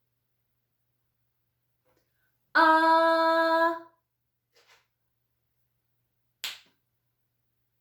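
A woman's voice holds a drawn-out short vowel sound at one steady pitch for about a second and a half. A single finger snap follows near the end.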